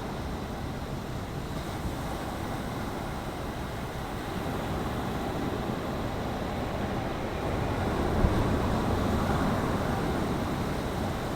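Sea waves: a steady rush of surf that swells louder about eight seconds in, as a wave breaks.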